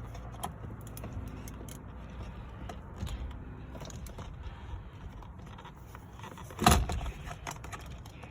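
Small metallic clicks and scrapes of hand work on a car steering wheel and its airbag fittings, with one sharp knock about two-thirds of the way through.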